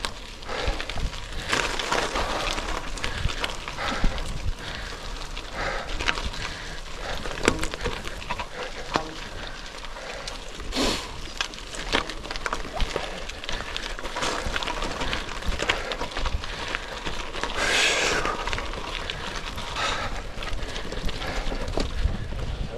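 Bicycle tyres crunching and crackling over loose gravel, with frequent sharp clicks and rattles from the bike, and a louder swell of noise about three-quarters of the way through.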